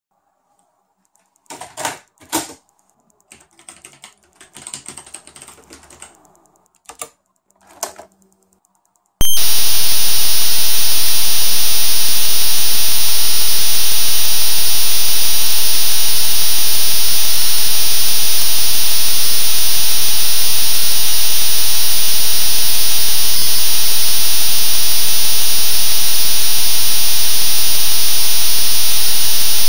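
A computer file encoded as audio for cassette storage by the data-cassette program. About nine seconds in, a loud, dense hiss with a steady high whistle starts abruptly and carries on without a break. Before it come a few scattered clicks and key taps.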